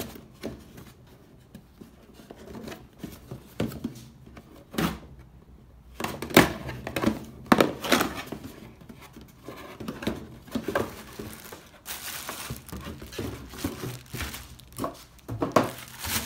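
A cardboard box being opened by hand: tape slit and flaps pulled and bent open, with a run of sharp cracks, tears and knocks. From about twelve seconds in, steady crinkling of bubble-wrap packing being pulled open.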